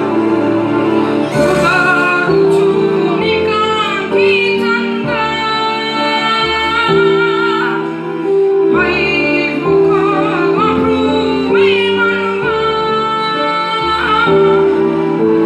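A song with a solo vocal line of held, wavering notes over a synthesizer accompaniment, played loud through a sound system.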